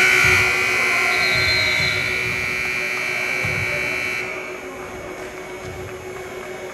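Basketball gym's scoreboard buzzer sounding one long, steady blast for about four seconds and then cutting off, signalling the end of play.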